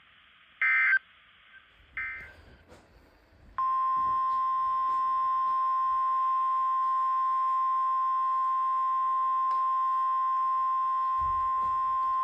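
A short burst of SAME digital data tones ends about two seconds in, the tail of the end-of-message code after a NOAA Weather Radio warning. After a pause, the 1050 Hz weather radio alert tone starts about three and a half seconds in and holds steady for about nine seconds, announcing the next alert.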